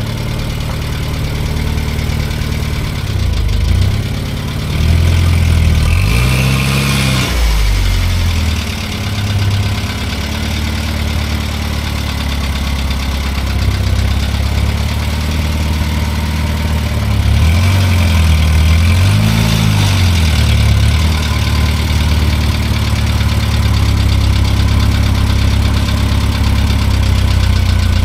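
Six-cylinder Wolseley engine idling while the car is manoeuvred at low speed. The revs rise and fall briefly a few seconds in, and again a couple of times just past halfway.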